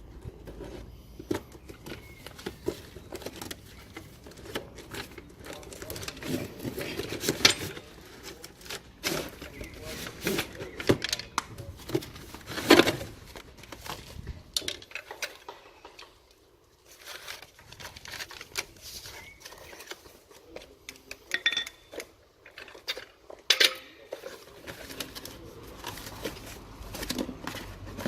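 Metal tools being handled: irregular clinks, clatter and rattles, some sharp and loud, with short quieter pauses.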